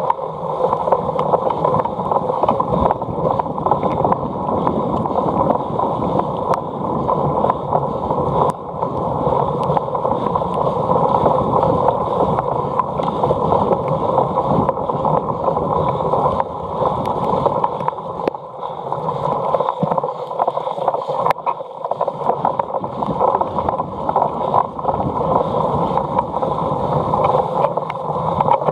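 Steady rushing noise of wind on the microphone and tyres rolling over grass while a cyclocross bike is being ridden, with scattered sharp clicks and rattles from the bike.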